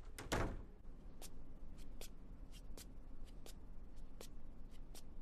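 A door bumps shut, then light footsteps tap unevenly across a wooden floor, faint.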